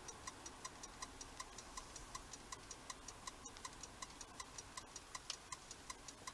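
Car turn-signal indicator ticking faintly and steadily inside the cabin, about three ticks a second.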